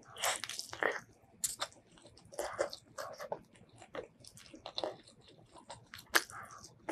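Close-miked biting and chewing of chicken curry eaten by hand: irregular bites and chews, with a sharp crunch near the end.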